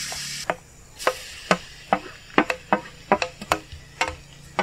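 Grated beetroot dropping into hot ghee in an aluminium kadai, with a brief sizzle at the start. A knife then taps and scrapes against a steel plate about a dozen times, knocking the clinging beetroot off into the pan.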